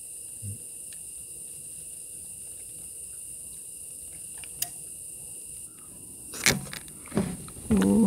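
Steady high-pitched insect chorus. Near the end it is broken by a few sharp knocks and clatter.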